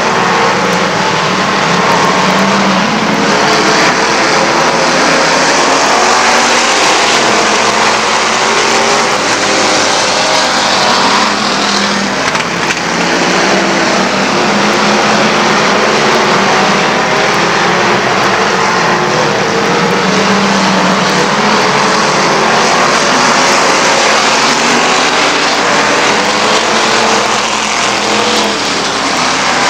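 A pack of dirt-track street stock race cars running hard, loud and continuous, with several engines overlapping and their pitches rising and falling as the cars go through the turns and down the straights.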